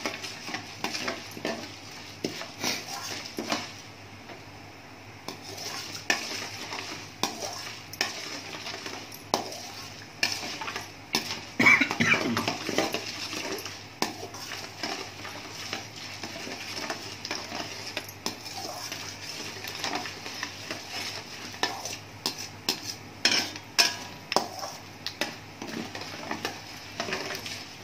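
Spatula scraping and clinking against a stainless steel pan as split chana dal and urad dal are stirred while they fry in hot oil and ghee, with a light sizzle under the irregular scrapes. The dal is being roasted golden for a South Indian tempering. One louder clatter comes about twelve seconds in.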